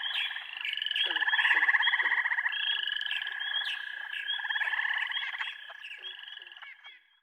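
A chorus of frogs calling: fast pulsing trills overlapping one another, with short chirps repeated among them, fading out over the last couple of seconds.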